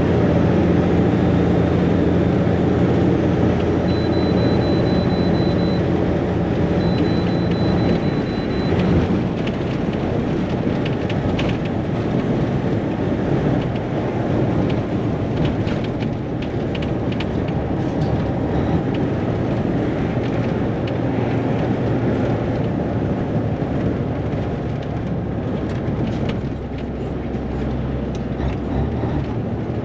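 Peterbilt 362 cabover's Caterpillar 3406B diesel engine running at highway speed, heard from inside the cab over road and wind noise. A steady hum from the engine fades back into the road noise about nine seconds in.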